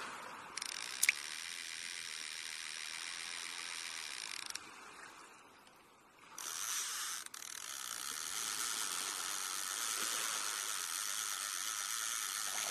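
Fishing reel sound effect: a rapid ratcheting whirr, like the reel's clicker as line pays out. It runs in two stretches with a short lull about five seconds in, and a sharp click comes about a second in.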